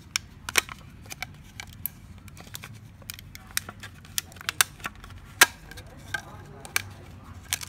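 Irregular sharp clicks and taps of plastic and metal parts as a laser printer's fuser assembly and its black film sleeve are handled, the loudest about five seconds in.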